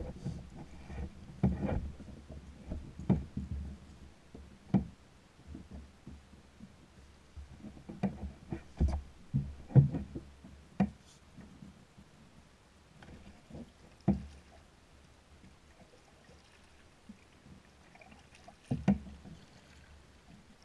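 Scattered knocks and clunks of gear being handled against the hull of a plastic sit-on-top fishing kayak, loudest in a cluster about eight to ten seconds in, with a sharp double knock near the end.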